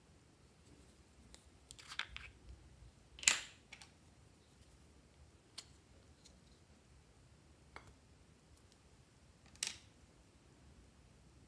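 Small plastic case being opened and handled: a few sharp plastic clicks and taps, the loudest about three seconds in and another near the end, over a quiet background.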